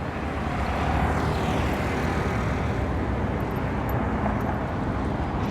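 Steady outdoor city ambience: an even low rumble like distant traffic, with no distinct events.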